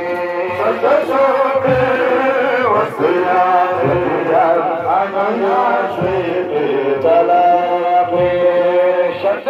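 Devotional chanting in long held, sliding notes over a low beat about once a second.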